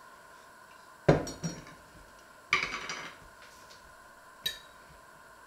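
Glass pickle jar and its metal lid handled on a wooden board: a sharp knock with a smaller one just after, then a ringing clatter of the lid. Near the end a fork clinks once against the glass jar.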